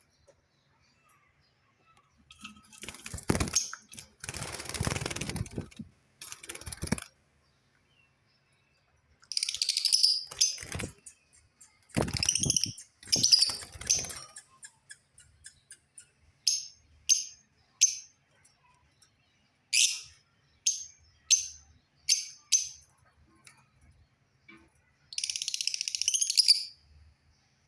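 Lovebirds giving short, high-pitched chirps at uneven intervals, with several bursts of wing flapping in the first part.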